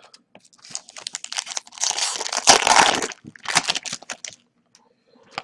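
Plastic wrapper of an Upper Deck hockey card pack crinkling and tearing as it is ripped open by hand, loudest in the middle, then dying down to a few small clicks near the end.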